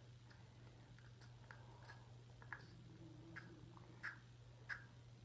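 Faint, irregular small plastic clicks, about eight over a few seconds, as a Warheads sour spray candy bottle is handled and worked, over a steady low hum.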